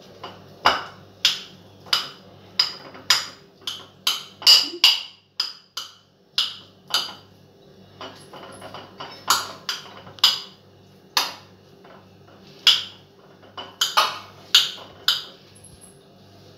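A steel spoon chopping boiled potatoes in a glass bowl, clinking sharply against the glass about two times a second, with a couple of short pauses.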